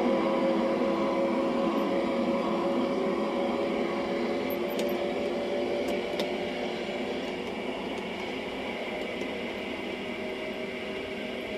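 Electric motor and gear whine of an LGB garden-railway model RhB electric locomotive hauling its coaches, with the wheels rolling on the rails, a steady hum growing gradually fainter as the train moves away.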